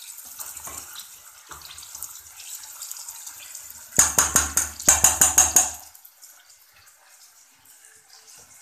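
Chopped fresh turmeric root and onion frying in oil in a steel pan, a steady sizzle, with a spoon scraping and knocking against the pan as it is stirred. About four seconds in comes a burst of rapid, loud scraping strokes lasting nearly two seconds.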